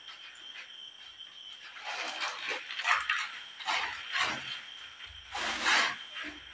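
A cricket chirring steadily in the background. From about two seconds in, a run of short, irregular scraping and rustling sounds from things being handled comes over it, the loudest near the end.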